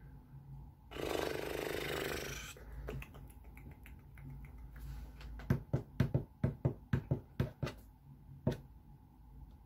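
A long breathy sigh into a close microphone, then a hand tapping or drumming on a desk: about a dozen sharp taps at roughly four a second, with one last tap a second later.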